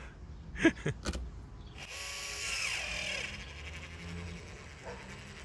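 Caulking gun squeezing sealant into rust holes along a car's windshield frame: a mechanical whirr, with a sharp knock near the start.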